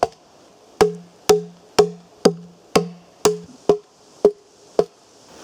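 Axe chopping into a log, cutting notches to flatten its face for a nodya fire: about ten evenly paced strikes, roughly two a second, each with a short ringing tone from the wood.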